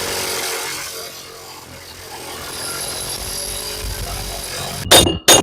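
Two sharp hammer blows on the steel wheel hub near the end, each ringing metallically, struck to drive the seized hub loose for the front wheel bearing replacement. Before them a steady mechanical whirring runs, dipping about a second in and building again.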